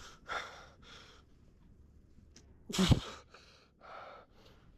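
Heavy, straining breaths during a hand-assisted calf pull with chains, with one loud grunt about three seconds in.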